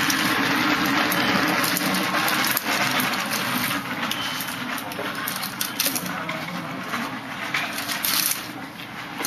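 Front-wheeled walker rolling and its tennis-ball-capped back legs scraping along a rough concrete walkway, a steady gritty scraping with small clicks and knocks.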